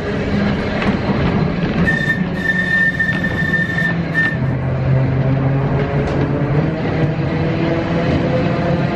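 A Manx Electric Railway tram car, built in 1899, running along the line, heard from inside its wooden saloon: a steady rumble and rattle with a low motor hum. From about two seconds in, a high steady wheel squeal lasts about two seconds, with a short repeat just after.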